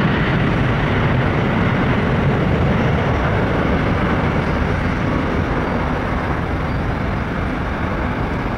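Jet engine roar of an Airbus A330-200 airliner climbing away after takeoff: its twin Rolls-Royce Trent 700 turbofans at climb thrust give a steady, deep rumble that fades slowly as the aircraft recedes.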